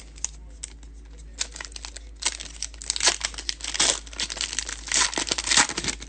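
A trading card pack's foil wrapper being torn open and crinkled in the hands: irregular bursts of crackling and tearing, loudest around the middle and again near the end.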